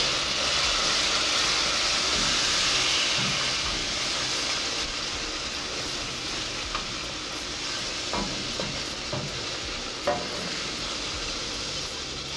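Diced onions and spices sizzling in a stainless steel sauté pan just deglazed with broth, while a wooden spoon stirs and scrapes the bottom. The sizzle slowly grows quieter, and the spoon knocks lightly against the pan a few times in the second half.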